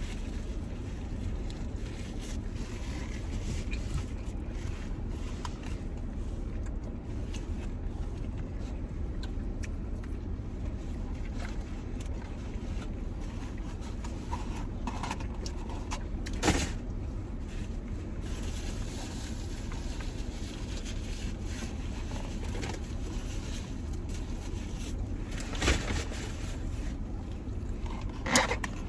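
Steady low rumble inside a car's cabin, with three short sharp crackles, one about halfway through and two near the end, from eating and handling food wrappers.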